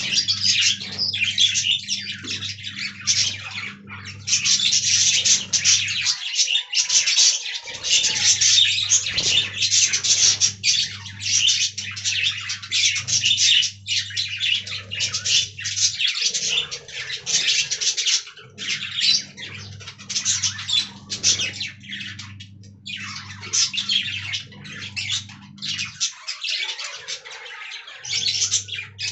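A flock of budgerigars chattering, chirping and warbling without pause in a busy, overlapping mass of high calls. A steady low hum runs under them and drops out briefly three times.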